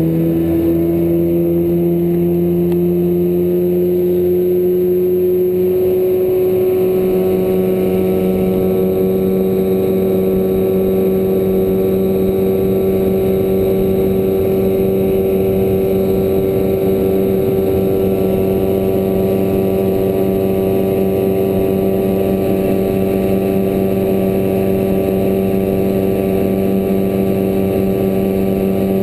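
Boat motor running under way at a steady cruising speed, its pitch settling and creeping up a little over the first few seconds before holding even.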